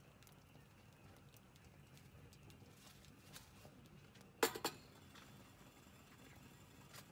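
Stainless steel kettle set down on the steel top plate of a rocket stove: two quick metallic clanks about four and a half seconds in, with a brief ring after.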